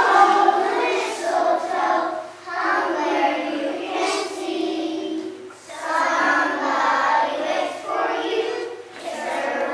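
A group of kindergarten children singing a song together in unison, in phrases a few seconds long with short breaks between them.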